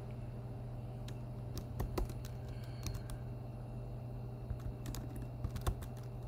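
Computer keyboard keystrokes: a few irregular, scattered key clicks as text is typed, over a steady low hum.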